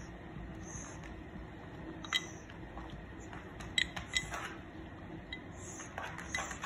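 A few light, scattered clinks of a spoon against a dish as the dogs' food is handled and stirred to cool.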